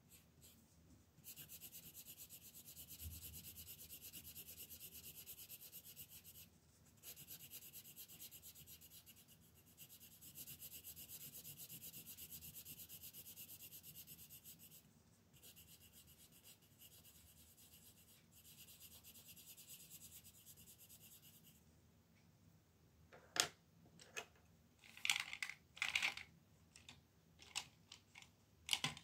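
Faber-Castell coloured pencil shading on coloring-book paper: quick back-and-forth strokes making a soft, steady scratching in long runs with brief pauses. After the shading stops, a string of sharp clicks and knocks, the loudest sounds here, from pencils being handled and set down on the table.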